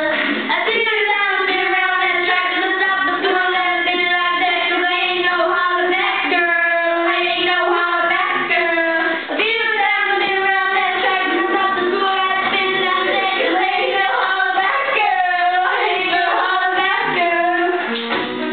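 Two girls singing a song together into handheld karaoke microphones, holding long notes.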